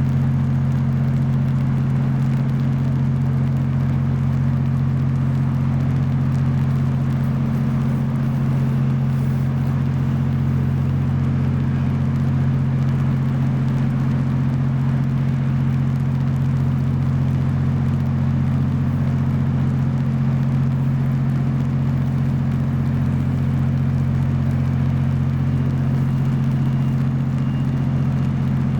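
Steady low engine drone that holds the same pitch and level throughout.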